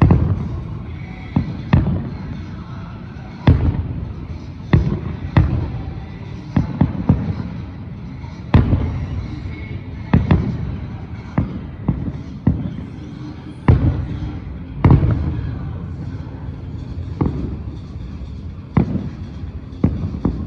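Aerial fireworks display: shells bursting with sharp booming bangs at uneven intervals, one every second or two, each trailing off in a low rumbling echo.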